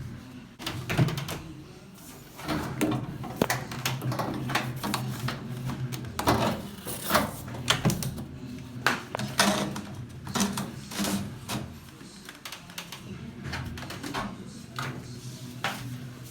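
Irregular clicks, taps and knocks of parts being handled and fitted by hand while a front-load washing machine is installed, over a low steady hum.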